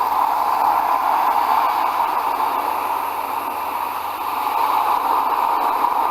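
Ocean waves sound effect: a steady rushing hiss of surf that ebbs a little about three to four seconds in and swells back up.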